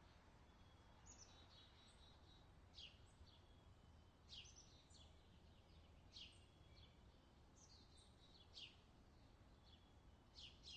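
Faint bird calls outdoors: short, sharp chirps sweeping down in pitch, repeated every second or two, over a faint low hum.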